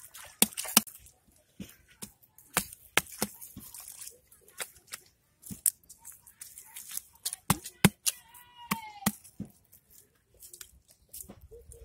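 Hands slapping, squeezing and packing wet mud around the rim of a dug hole: irregular sharp wet slaps and squelches. A short falling call sounds about eight seconds in.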